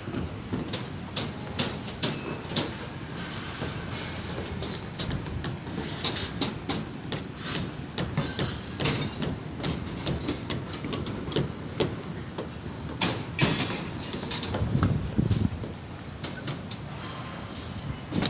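Steel reinforcing bars being handled on a slab: irregular sharp metallic clanks and knocks, one or two a second, over a steady low rumble.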